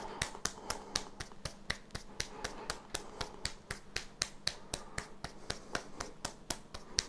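A hand striking the wrist and forearm in qigong percussive self-massage (pai da gong), an even run of sharp slaps about five a second.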